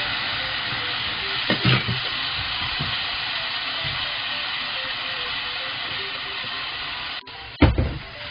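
Cooking wine and sliced raw pork sizzling in a hot nonstick wok, a steady hiss. Near the end the sizzle cuts off for a moment, and a wooden spatula knocks against the pan as stirring begins.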